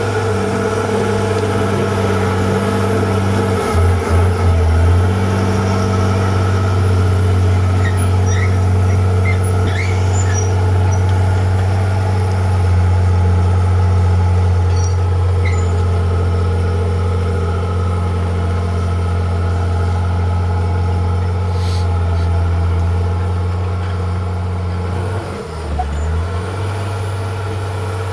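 Heavy diesel engine of a construction machine running steadily with a deep hum, its pitch dipping briefly twice, about four seconds in and near the end.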